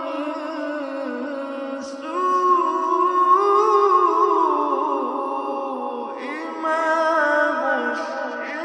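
A male reciter chanting a Quranic verse in slow, melodic tajweed style, holding and bending long drawn-out notes. He pauses briefly about two seconds in and again about six seconds in, resuming each time on a new phrase.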